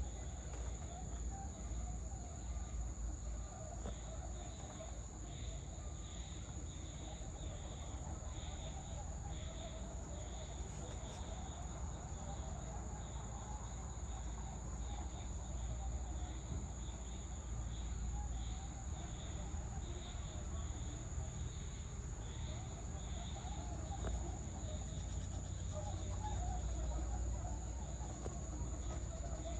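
Evening outdoor ambience of insects: a steady high-pitched drone with rapid, rhythmic chirping under it, over a low rumble.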